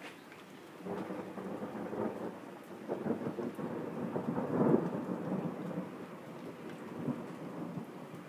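Thunder rumbling: a rolling peal that swells about a second in, is loudest a little past the middle, then slowly fades.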